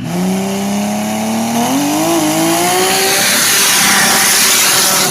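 Turbocharged drag car's engine held at high revs during a burnout, its pitch climbing about two seconds in, under a growing hiss of spinning tyres. The sound cuts off suddenly at the end.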